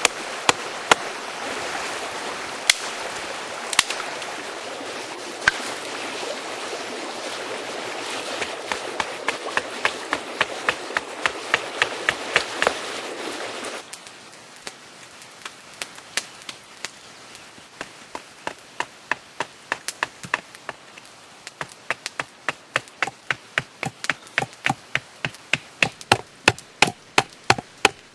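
Steady run of sharp taps, about two to three a second: thin antler wedges being driven into a dry incense cedar branch to split it, working over a rock. A steady hiss lies under the taps and stops suddenly about halfway through.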